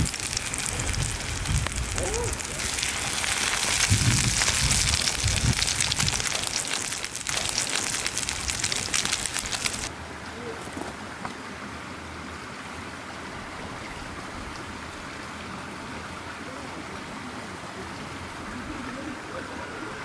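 Egg-battered beef slices (yukjeon) sizzling and spitting in oil in a cast-iron skillet over a campfire, with low rumbles underneath. About ten seconds in the sizzle cuts off, leaving the steady rush of a creek.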